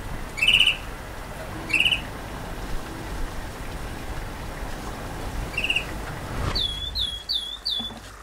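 Caged canary chirping: a few short separate chirps over a steady hiss, then near the end a quick run of four repeated swooping whistled notes.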